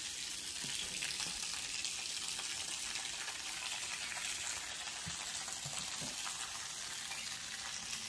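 Wash water draining out through a portable mini washing machine's drain hose after the wash, a steady hiss of running water.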